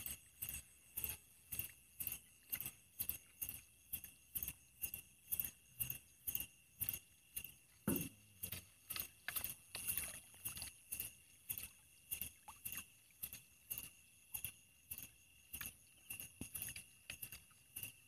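Footsteps wading through shallow water, splashing at a steady walking pace of about two and a half steps a second, over a steady high-pitched chirring of night insects.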